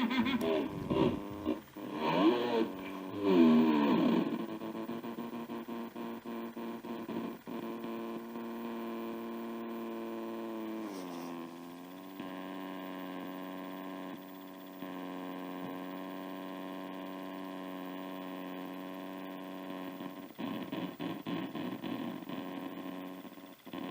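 Circuit-bent Tyco talking Big Bird doll's voice chip glitching. Warbling, pitch-bending electronic voice tones for the first few seconds settle into a steady distorted drone. The drone drops in pitch about eleven seconds in and breaks into a rapid stutter near the end.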